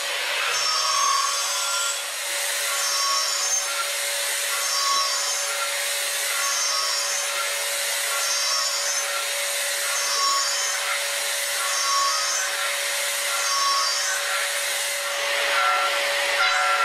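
End mill trochoidal-milling a titanium blisk on a CNC machining centre: a steady high spindle tone under a cutting hiss. Ringing tones swell about once a second, with each loop of the trochoidal toolpath into the metal.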